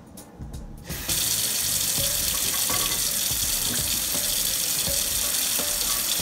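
Kitchen faucet running full into a stainless steel sink: a steady rush of water that starts about a second in.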